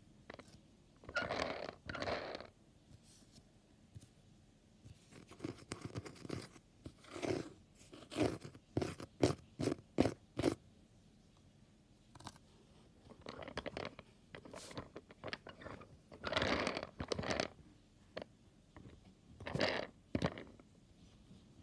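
Fingers scratching, rubbing and tapping on a cardboard fidget board and the toys stuck to it: irregular crunchy scrapes, with a quick run of about eight sharp taps in the middle.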